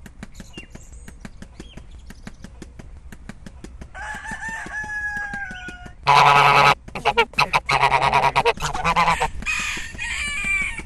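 Farmyard fowl calling: a long crowing call that falls in pitch, followed by several loud calls in quick succession and one more near the end. A fast, even ticking, about six or seven ticks a second, runs underneath.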